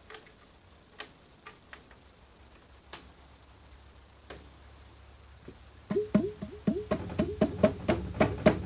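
Metal parts of a 1940s Sheldon lathe headstock clicking and tapping as they are worked into place by hand. At first there are a few separate light clicks. From about six seconds in comes a quick run of ringing metallic clicks, about four or five a second.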